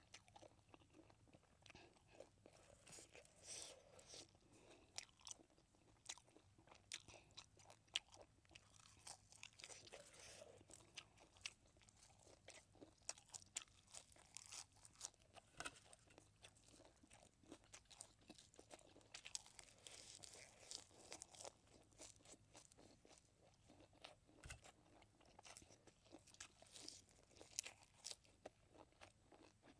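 A person chewing and biting into a crisp raw green vegetable, with many small, irregular crunches.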